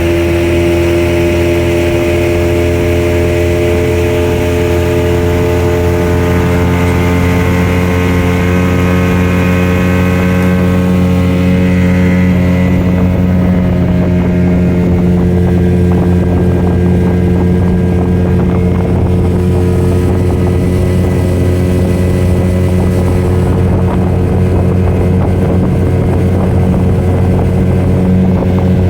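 Motorboat engine running steadily at a constant pitch. A higher hiss over it dies down about halfway through.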